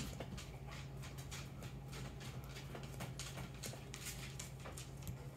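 Apple Pencil tip tapping and sweeping on an iPad's glass screen in quick, short strokes: irregular light ticks, several a second, over a low steady hum.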